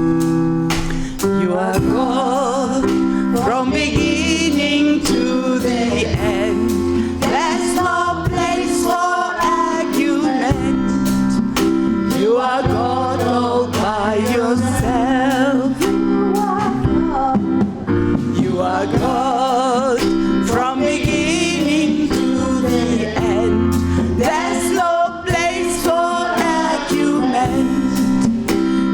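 Live gospel song: a group of male and female voices singing with vibrato over a band with steady bass notes and a regular drum beat.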